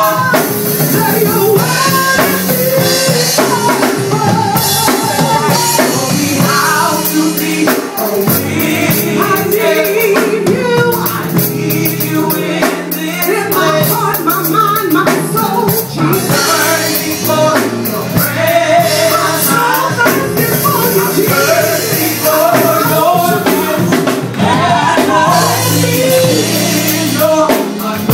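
Live gospel song: a woman sings the lead over a drum kit and band, with backing singers.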